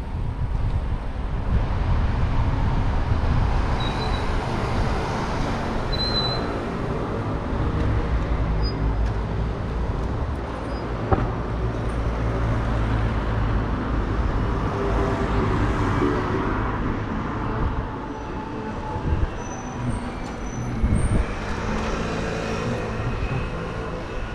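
City street traffic noise heard from a moving bicycle: a steady low rumble of vehicles and road noise, with a few short high chirps and a couple of brief knocks late on.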